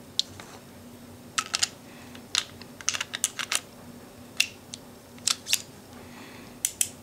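Sharp metallic clicks and clacks of a single-action revolver being handled as its cylinder is fitted back into the frame, scattered irregularly and sometimes in quick runs of several clicks.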